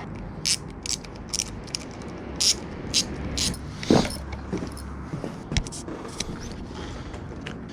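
Irregular light metallic clicks and clinks from handling the aluminium handlebars and their clamp parts while positioning them on the motorcycle, with one sharper knock about four seconds in.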